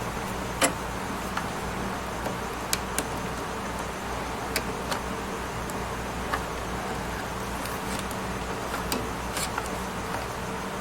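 Scattered light clicks and taps of SATA and power cable plugs and plastic parts being handled inside a desktop PC case, about ten in all, the sharpest less than a second in, over a steady hum and hiss.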